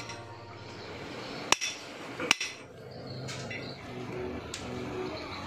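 Hammer striking metal engine parts while a bearing is replaced in a Honda S90 engine: two sharp strikes about three-quarters of a second apart, then a couple of lighter knocks.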